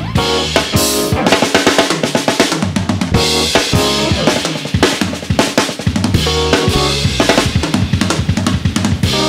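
Jazz band playing live, with a busy drum kit to the fore (snare, bass drum and cymbal hits) over electric bass guitar.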